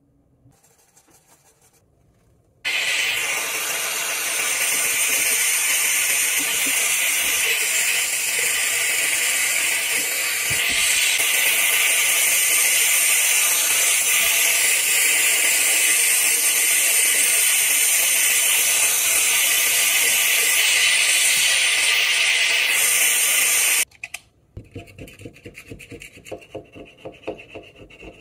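Faint scratching, then a steam cleaner's nozzle hissing loudly and steadily for about twenty seconds as it blasts old grease off a stainless-steel gas burner. The hiss cuts off suddenly and gives way to rapid scrubbing strokes on the steel.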